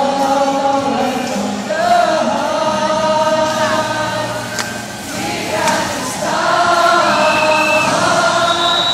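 A song sung by many voices together, with long held notes, over music in the arena. Near the end, short high steady tones sound over the singing.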